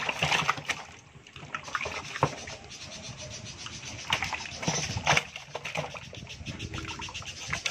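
Live snakehead fish thrashing in a water-filled plastic tub: irregular wet splashes and slaps, with a few sharper knocks at about 2, 4 and 5 seconds in.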